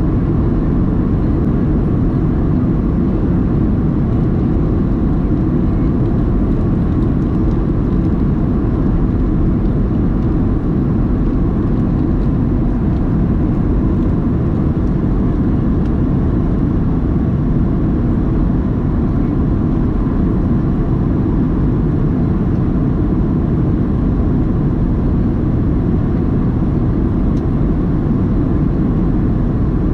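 Boeing 737-700 cabin noise: a steady, loud low rumble of the jet engines and airflow, heard from inside the cabin.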